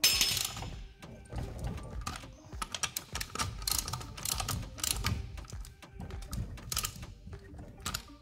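Socket ratchet wrench clicking in quick, irregular runs as it is swung back and forth, tightening a car's wheel bolts.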